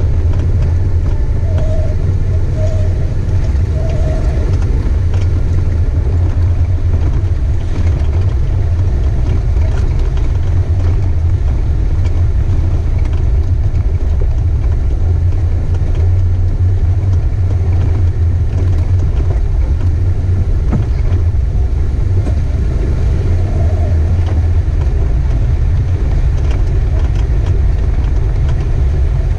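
A four-wheel-drive vehicle driving along a rough gravel track, heard from inside the cab: its engine and tyres make a steady low rumble.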